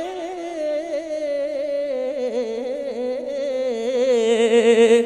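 A man's solo voice reciting a naat, holding one long ornamented note that wavers up and down in pitch. It grows louder toward the end.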